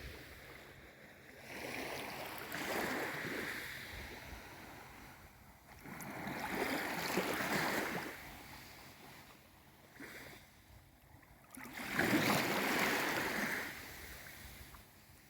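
Small waves of a calm sea washing in and drawing back: three swells of surf noise, each rising and fading, about five seconds apart.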